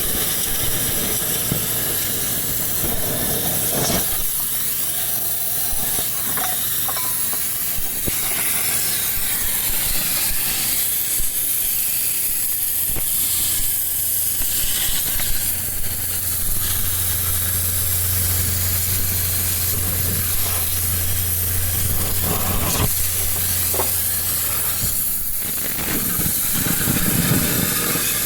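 Steady hissing workshop machine noise, with a low steady hum from about halfway through to near the end and a few sharp knocks.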